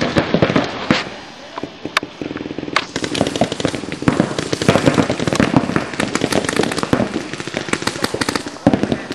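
Paintball markers firing rapid strings of shots. A few scattered shots come first, then near-continuous fire from about three seconds in.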